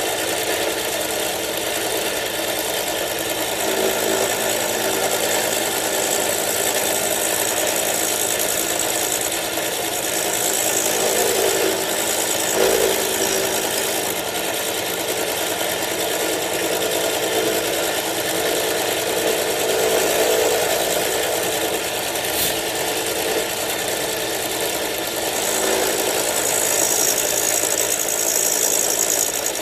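Manual milling machine running steadily while its cutter mills the lock relief in a frame lock knife, with a single sharp click about three quarters of the way through.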